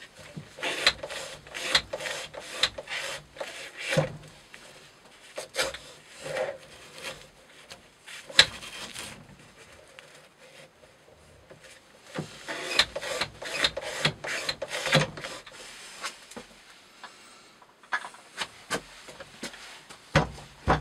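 Spyderco Para Military 2 blade in Maxamet steel cutting a natural-fibre rope in a weighted test jig, stroke after stroke: a run of short cuts, a pause, then another run. The edge is near the end of a 700-cut wear test and has started to go smooth. A single knock comes near the end as the weight disc is lifted off the holder.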